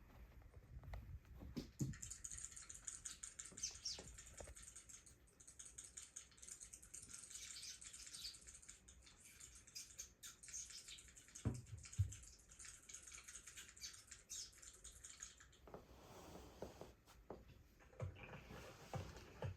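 Faint bird chirping with small pattering and clicking sounds, from a bird video playing on a TV.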